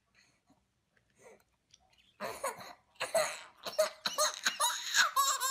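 Infant crying after his bottle is taken away: broken sobbing cries start about two seconds in and turn into one long wail near the end.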